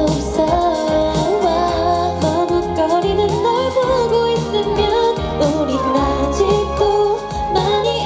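K-pop dance-pop song with female group vocals singing over a steady beat.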